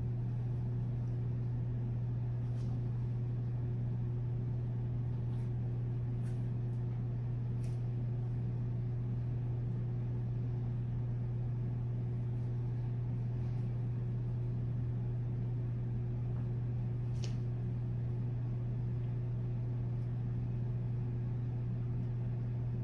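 A steady low hum over faint room noise, with a few faint, scattered clicks.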